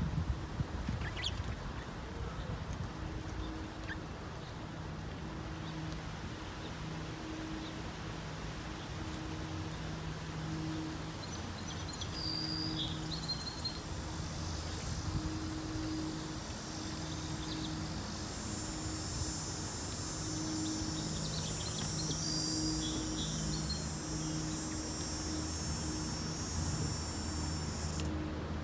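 Insects chirping: a high, evenly pulsed chirp throughout, joined from about two-thirds of the way in by a louder, denser high buzz that stops near the end. Under it runs a faint on-and-off low hum, and a few short chirps sound about halfway.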